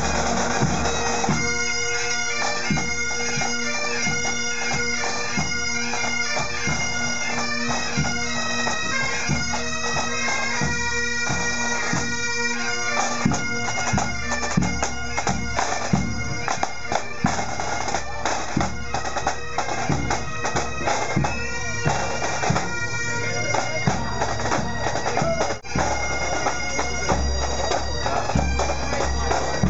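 Pipe band marching: bagpipes play a tune over their steady drones, with drums beating underneath. The tune starts about a second in, right after the command to march.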